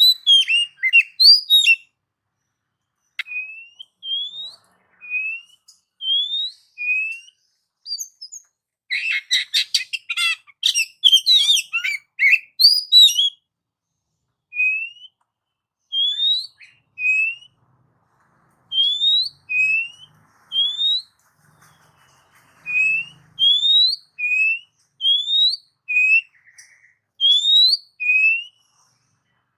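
Oriental magpie-robin (kacer) singing: short rising whistled notes repeated about once a second, broken in the middle by a rapid, varied run of song lasting a few seconds.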